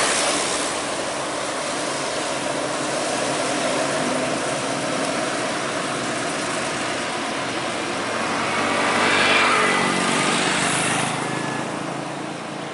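Roadside traffic passing close by: a coach's engine fading as it pulls away, then motorcycles and a heavy truck approaching and going past, with a louder pass about nine seconds in.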